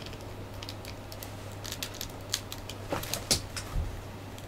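Hard plastic parts of a dragon model-kit figure clicking and clacking as they are handled and pushed together: a scatter of short sharp clicks, coming thicker in the second half. The figure's joints are loose and pieces keep coming off.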